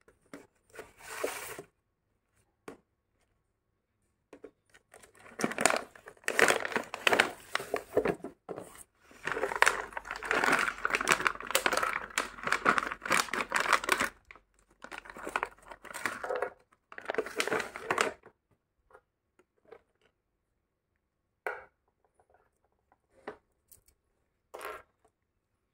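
Clear plastic bag of in-shell walnuts crinkling and rustling in long bursts as it is handled and opened. Near the end come a few short, sharp snaps as walnut shells are cracked open.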